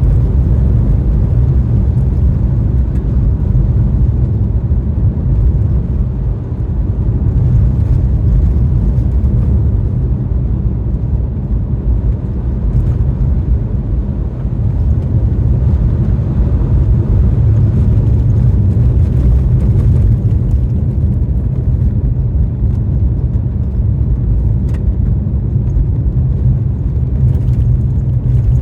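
Car driving on a snowy road, a steady low rumble of tyre and wind noise.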